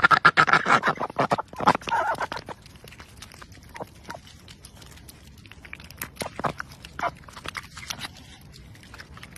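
White crested duck eating wet chopped tomatoes from a bowl: fast, wet bill smacks and slurps, dense and loudest for the first two and a half seconds, then sparser single pecks and clicks.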